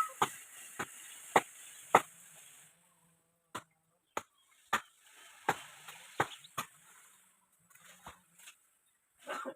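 A series of sharp strikes, about two a second, in runs broken by short pauses.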